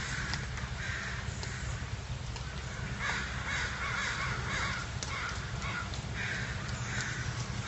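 A bird calling outdoors: a run of short, repeated calls, coming thickest from about three seconds in, over a steady low hum.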